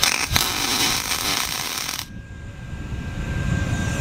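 MIG welding arc tacking an aluminium pontoon tube: a steady crackling hiss for about two seconds that stops abruptly.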